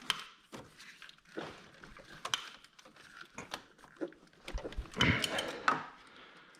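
Hand-tool work while fitting a car's starter motor: scattered sharp clicks and knocks of tools and metal parts, with a louder stretch of rattling and scraping about five seconds in as it is tightened up.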